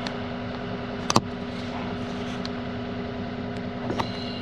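Komatsu PC88 excavator's diesel engine running steadily, a constant hum heard from inside the cab, with a sharp click about a second in and another near the end.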